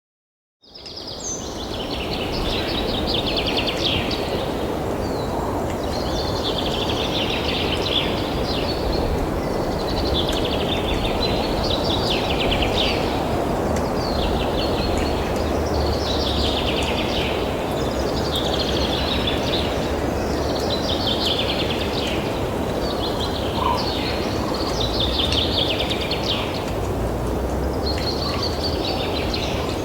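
A bird repeating a chattering, trilled call about every two seconds over steady outdoor background noise, starting after a moment of silence.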